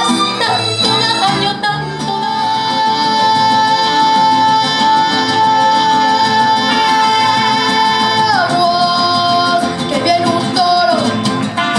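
Mariachi band (violins, trumpets, guitars) accompanying a female singer, who holds one long high note for about seven seconds and then slides down from it.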